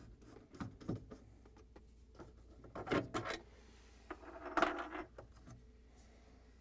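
Small metal clicks and clinks, with a louder clatter about three seconds in and again, loudest, about four and a half seconds in: screws being backed out of freezer shelf-support rails with a nut driver and the rails coming free.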